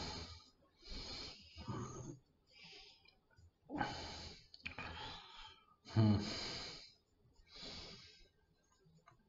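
A man breathing in and out close to the microphone: about eight noisy breaths, the loudest about six seconds in.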